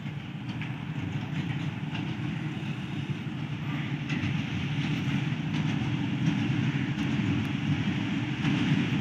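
Pakistan Railways HBU-20 diesel locomotive hauling a passenger train as it approaches. Its engine is a steady low rumble that grows slowly louder.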